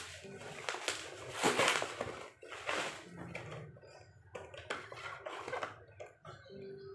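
Plastic packaging rustling and crinkling, with light clicks and knocks of plastic pens being handled. The loudest rustle comes about one and a half seconds in.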